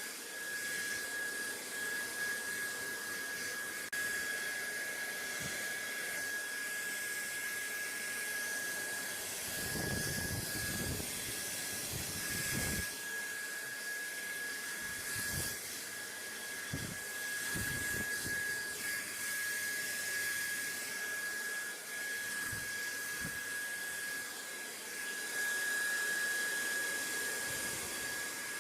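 Steady white noise: an even rushing hiss with a constant high whine running through it, and a few brief low rumbles underneath.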